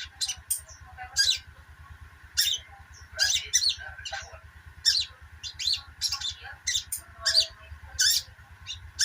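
Sogok ontong (little spiderhunter) chattering: a string of short, sharp, high chirps, about one or two a second at an uneven pace.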